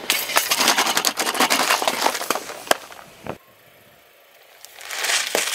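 Aluminium soda cans crushed under a car tyre: a dense run of cracks and crackles for about three seconds that cuts off suddenly. Near the end a bag of M&M's is run over, a swelling crunch with one sharp crack.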